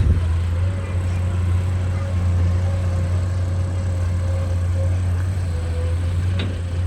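Excavator engine running steadily, a deep continuous drone, with a sharp click at the very start and another near the end.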